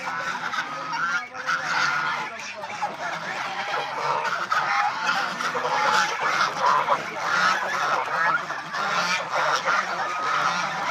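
A flock of domestic geese, brown Chinese geese among them, honking continuously, with many calls overlapping.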